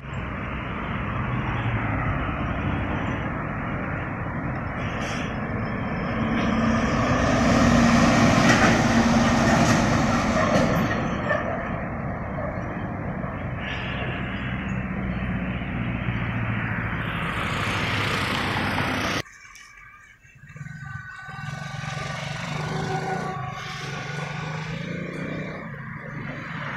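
Road traffic: trucks driving past, their engines and tyres rising to a peak about eight seconds in and easing off. The noise cuts off abruptly about two-thirds of the way through, and a quieter vehicle engine follows.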